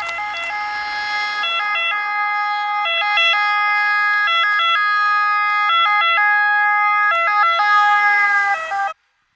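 Ambulance two-tone siren switching back and forth between a high and a low note, growing louder as the ambulance approaches and passes close by. Its pitch drops slightly as it goes past, and it cuts off suddenly near the end.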